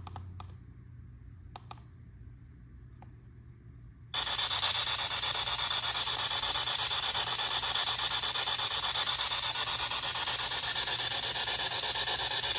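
PSB7-Pro spirit box sweeping rapidly through FM stations: steady radio static from its rear speaker that cuts in suddenly about four seconds in. Before that it is quiet apart from a couple of faint clicks.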